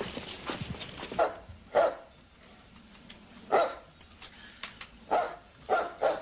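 A dog barking: five loud barks in two pairs and a single, spaced unevenly about half a second to a second and a half apart.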